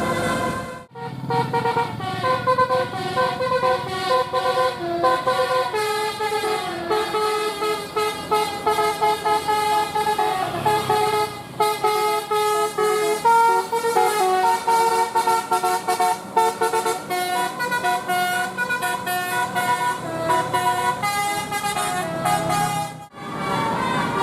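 Telolet bus horn playing a melody of clear, stepped notes. The tune starts sharply about a second in and cuts off shortly before the end, where another tune begins.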